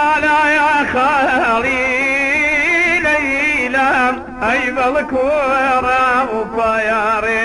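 Background music: a voice singing a wavering, ornamented Middle Eastern-style melody over a steady low drone, breaking off briefly about four seconds in.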